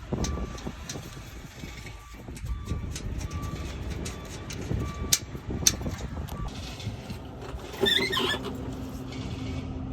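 Heavy diesel truck engine running at idle, with scattered clicks and knocks over it, a short squeal about eight seconds in, then a steady hum.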